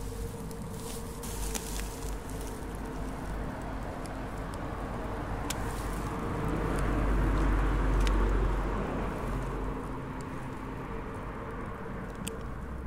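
A passing vehicle, its engine and tyre noise swelling to a peak about eight seconds in and then fading, over a steady low background hum. A few faint clicks.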